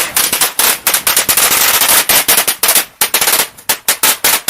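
A string of firecrackers going off: a dense, rapid crackle of sharp bangs that thins out to scattered single pops near the end.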